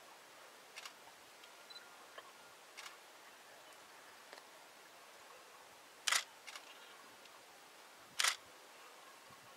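Camera shutter clicks: a couple of faint ones early, then two loud ones about two seconds apart in the second half, over a faint steady hiss.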